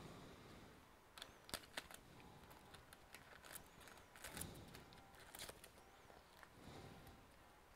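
Quiet handling sounds from a laptop's LCD panel and display cable connector being worked with gloved hands: scattered faint clicks and taps, the sharpest two about a second and a half in.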